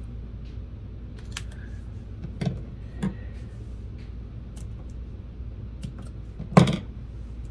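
A handful of light knocks and clicks from craft materials being handled on a desk, the loudest near the end, over a steady low hum.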